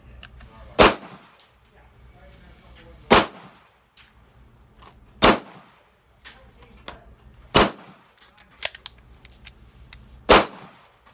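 Five single shots from a Polymer80 PF940C 9mm pistol, fired slowly about two to three seconds apart, each a sharp crack with a short echo. A few fainter clicks fall between the fourth and fifth shots.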